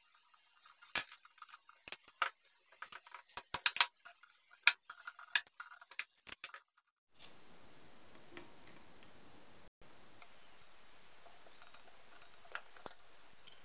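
Metal tools clicking and clinking in quick irregular clusters as bolts on a water pump's casing are worked loose with a box spanner. After about seven seconds this gives way abruptly to a faint steady hiss with a few light taps.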